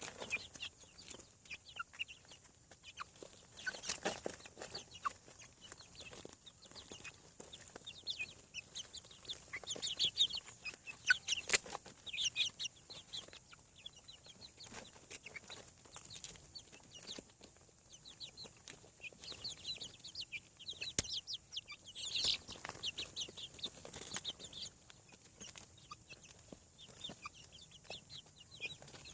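Chicks peeping: many short, high-pitched cheeps in quick runs that come and go, busiest twice. A few sharp knocks sound among them.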